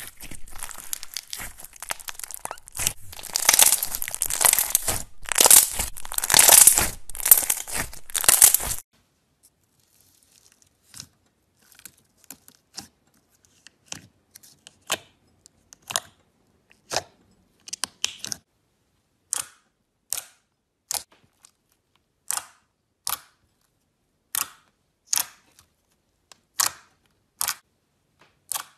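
Clear blue slime full of air bubbles being stretched, with dense crackling and popping that grows louder, stopping abruptly about nine seconds in. After a short gap, thick glossy orange slime is poked with fingers, giving short sharp pops about once a second as air pockets burst.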